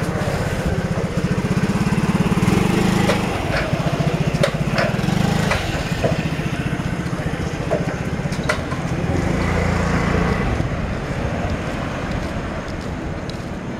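Small engine running with a steady low rumble that swells and eases several times, with a few light clicks over it.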